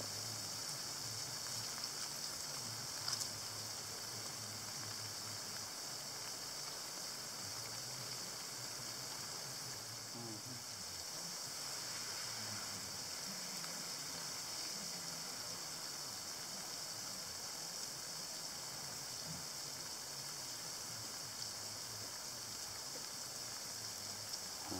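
Lawn sprinkler on a garden hose spraying water: a steady, even hiss.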